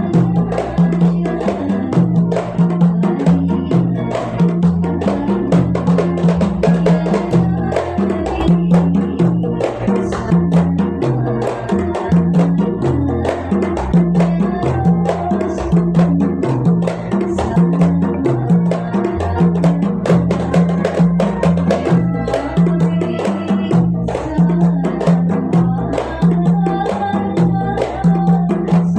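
Qasidah music with a steady, busy percussion beat and a pulsing bass line, without transcribed vocals.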